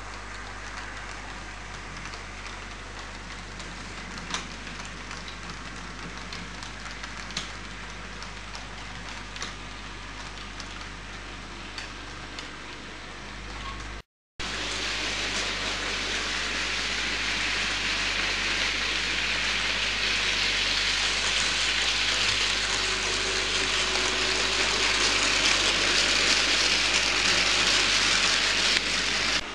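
An OO-gauge model train runs on the layout track: a steady hiss with a few sharp clicks from the wheels and motor. After a brief dropout about halfway, a louder rain-like hiss builds steadily for some fifteen seconds and cuts off suddenly at the end.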